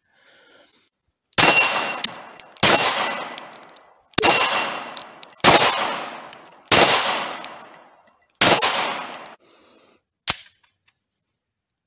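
Six 9mm pistol shots from a Glock 17, about one every 1.3 seconds, each with a long echoing tail off the surrounding rock and a metallic ring from a steel target. A single short sharp click follows near the end.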